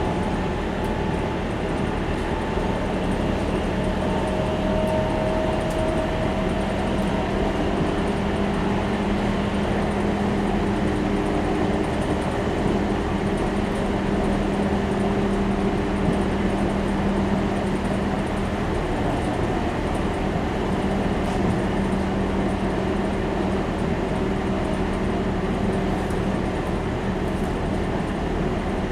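Interior of a Berlin S-Bahn class 480 electric multiple unit running at speed: a steady rumble of wheels and running gear with several humming tones from the electric drive that shift slightly in pitch.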